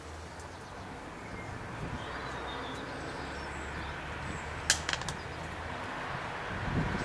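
A steel spanner clinks sharply against the motorcycle engine three times in quick succession, about two-thirds of the way through, over a faint steady low hum. Road traffic noise grows louder near the end.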